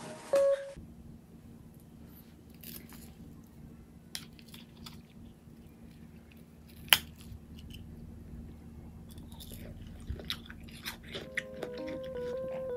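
Eating watermelon punch: a wooden spoon scooping through melon balls and ice in the watermelon-rind bowl, with scattered soft clicks, one sharper click, and chewing. Light background music comes back in near the end.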